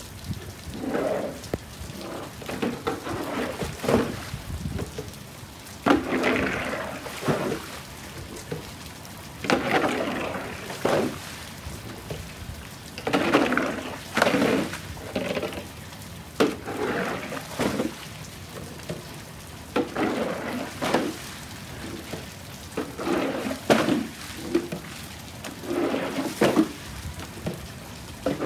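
Floodwater on a paved patio sloshing and splashing in repeated, irregular bursts as it is scooped and shoved along with a long-handled dustpan and broom. A steady hiss of rain runs under the splashes.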